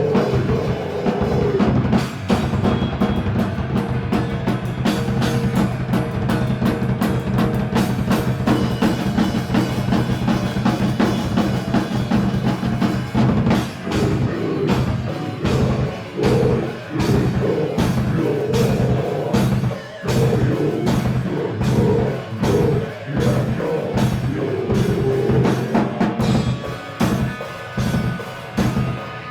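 Rock music with a drum kit.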